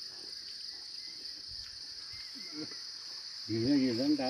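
Steady, high-pitched chorus of insects. A person's voice comes in about three and a half seconds in.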